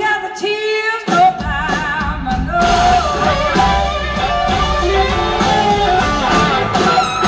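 Live blues-rock band playing, with electric guitars, drums and a horn section, and a held, wavering lead line over the top. The bass and drums drop out briefly at the start, and the full band comes back in about a second in.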